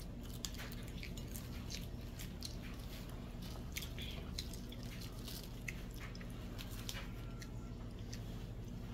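Mouth sounds of a person chewing food, with small irregular clicks scattered throughout, over a steady low hum.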